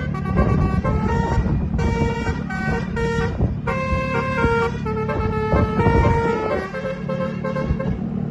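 Bus's Basuri telolet multi-tone horn playing a tune of held notes, one pitch after another, over the low rumble of the bus engine.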